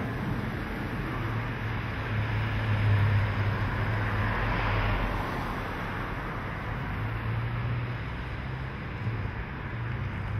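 A 1951 Studebaker Champion's flathead six with headers and dual exhausts, running steadily as the car drives past along a street. Other traffic passes at the same time. The engine hum and road noise swell a few seconds in.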